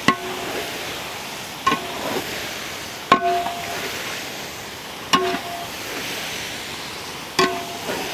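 Spatula stirring chicken pieces in a large metal cooking pot, knocking the pot five times with a short metallic ring each time, about every one and a half to two seconds, over a steady sizzle of frying.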